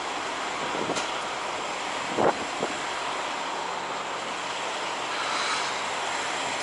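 Steady background din of truck engines idling around a fuel island, with a short knock about two seconds in.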